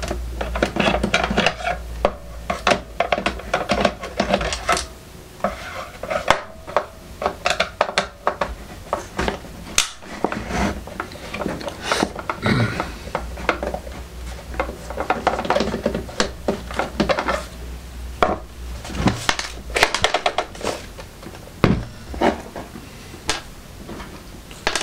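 Plastic case and screws of a Lenoxx Sound BP-103 boombox being handled and worked on during disassembly: many irregular clicks, taps and rattles of hard plastic and small metal parts.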